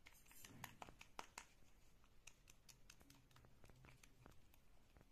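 Near silence with faint, irregular clicks and scrapes of a facial brush stirring thick cream paste in a plastic mixing bowl.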